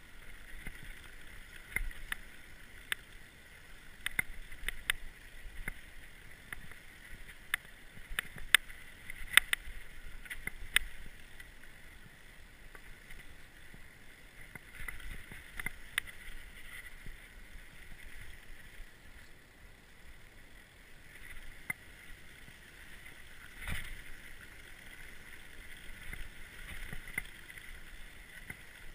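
Orbea Occam mountain bike rattling over a rough dirt singletrack descent, with steady tyre and wind noise and many sharp knocks and clatters from the bike. The knocks come thickest in the first ten seconds, with a strong jolt about 24 s in.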